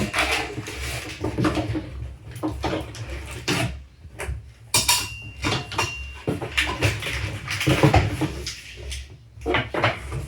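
Metal parts of a washing-machine stand clinking and clattering as they are handled, with many short knocks throughout.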